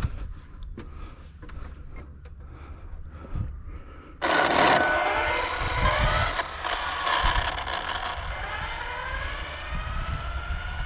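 Arrma Limitless speed-run RC car taking off: a sudden loud rush about four seconds in, then the high whine of its brushless electric motor and drivetrain, its pitch gliding and then rising steadily as the car speeds away.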